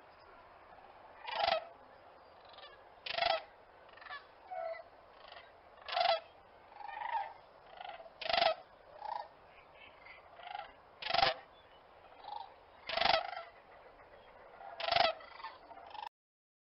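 Cranes calling: loud trumpeting calls about every two seconds, with quieter calls in between, cutting off suddenly near the end.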